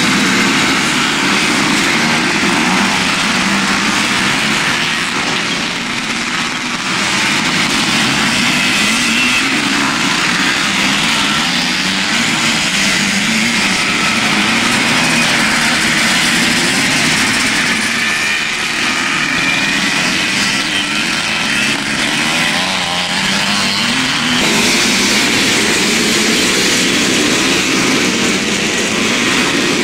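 Motocross motorcycle engines racing, their pitch rising and falling over and over as the throttle is opened and closed.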